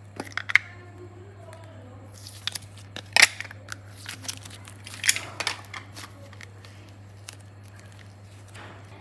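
A plastic clay mold being handled: sharp plastic clicks and taps, the loudest about three seconds in and a cluster around five seconds, with soft peeling and squishing as green modelling clay is pulled out of the mold and kneaded. A steady low hum runs underneath.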